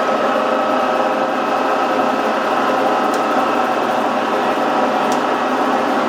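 Sajo PF-52 horizontal milling machine running, a steady mechanical whine from its spindle drive and gearing, with two faint ticks about three and five seconds in.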